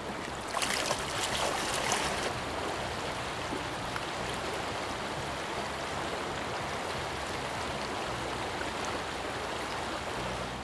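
Shallow river flowing over a gravel riffle, a steady rushing of water, a little louder for about a second and a half near the start.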